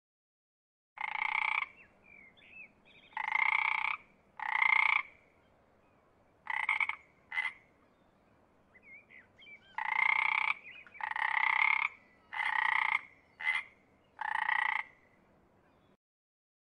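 Frog croaking: about ten rasping croaks, each under a second long, some of them short, in two runs with a pause of a couple of seconds between.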